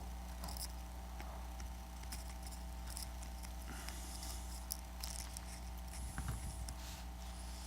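Light scratching, crinkling and tapping from double-sided adhesive tape being handled and pressed along a tablet frame, made up of short scattered clicks and rustles. A steady low electrical hum runs underneath.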